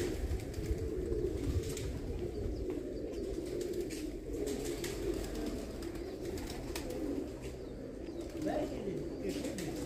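Domestic pigeons cooing from the loft, a continuous overlapping chorus of many birds.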